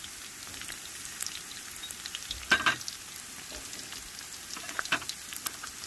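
Sliced garlic sizzling in hot rendered pork belly fat in a wok: a steady frying hiss with scattered small pops, and a brief louder crackle about two and a half seconds in.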